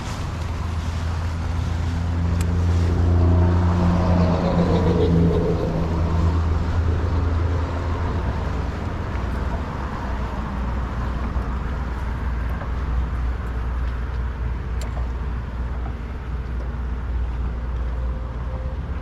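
Bass boat's outboard motor running under way, swelling to its loudest a few seconds in and then holding a steady hum, with rushing wind and water noise.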